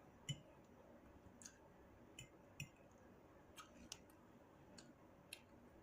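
Near silence broken by about eight faint, irregularly spaced clicks from someone eating: mouth and chewing clicks.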